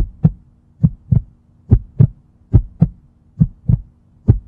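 Heartbeat sound effect: six double thumps, a pair about every 0.85 s, over a faint steady low hum.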